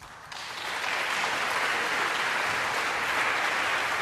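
Audience applauding: a round of clapping that builds over the first second, then holds steady.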